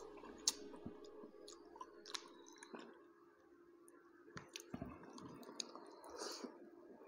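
Faint close-up chewing of chicken, with scattered wet mouth clicks and smacks as food and fingers go to the mouth. A steady low hum runs underneath.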